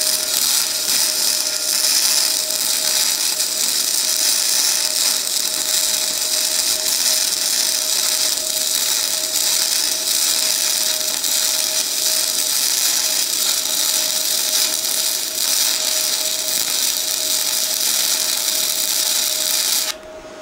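Flux-core MIG welding arc from a Bestarc multiprocess welder at a low setting: a steady, high-pitched crackling sizzle that runs without a break and cuts off abruptly near the end.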